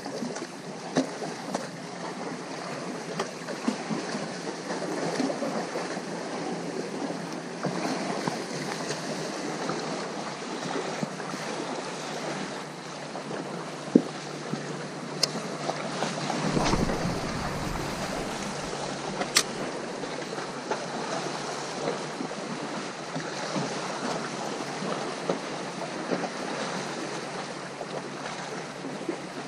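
Sea surf washing steadily, with a louder, deeper surge a little past halfway and scattered light clicks.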